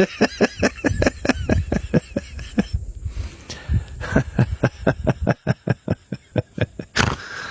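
Young bird giving a rapid run of short, harsh calls, about five a second, pausing briefly about three seconds in, then resuming.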